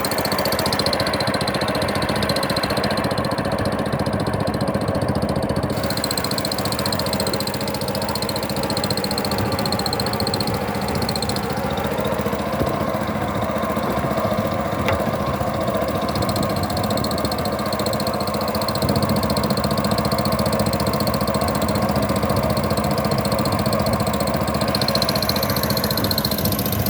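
Small fishing boat's engine running steadily at trolling speed. Its pitch sags slightly for a few seconds about a third of the way in, then picks up again.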